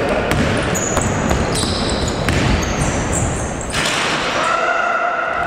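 Basketball game sounds echoing in a gym: a ball bouncing on the court floor and sneakers squeaking, over a steady hall din. A higher pitched squeak or call is heard near the end.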